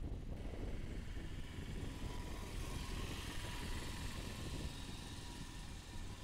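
Steady low rumble of a moving vehicle, engine and tyres on the road. A hiss swells about three seconds in and then eases.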